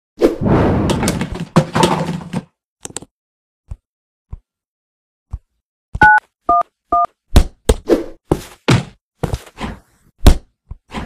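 Sound effects on a smartphone: about two seconds of dense clattering noise, then a few light taps. Next come three phone keypad touch tones dialing 9-1-1, and after them a quick run of sharp whacks and thuds.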